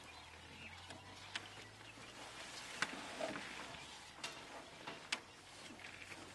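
Faint open-air ambience with a low steady hum, broken by four sharp clicks spaced a second or so apart.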